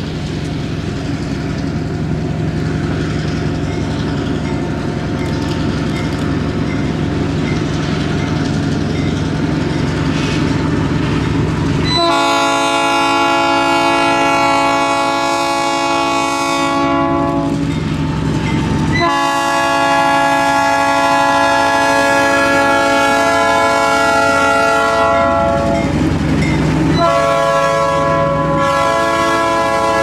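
Diesel locomotive approaching with its engine running steadily, then its Leslie air horn sounds about halfway through: one long blast of about six seconds, a second long blast of about seven seconds, and a third beginning near the end.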